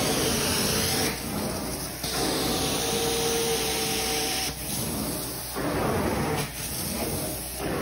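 Carpet-cleaning extraction wand pulled across carpet in repeated strokes: a steady rushing hiss of suction and spray that shifts with each pass, with a faint whistle during the longest pass in the middle.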